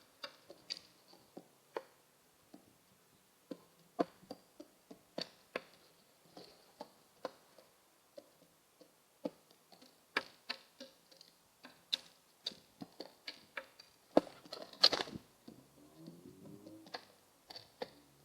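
Irregular sharp taps and clicks on a hard surface, two or three a second, from a pigeon. A short low, wavering pitched sound comes in near the end.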